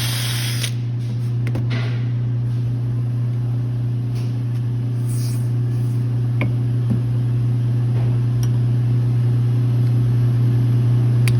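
A steady low hum runs throughout. A loud hiss cuts off about half a second in, and a few faint taps and clicks follow.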